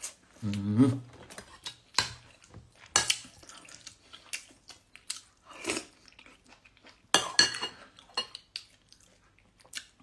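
Metal cutlery clinking and scraping on a ceramic plate of rice, a few separate sharp clinks spread over several seconds, with chewing between them. A short vocal sound comes about half a second in.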